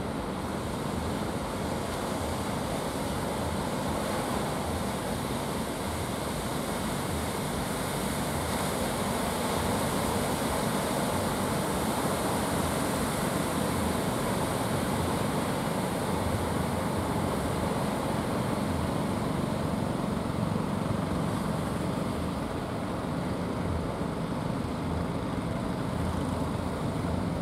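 Surf breaking on the shore mixed with the steady drone of fishing boats' engines running out on the water.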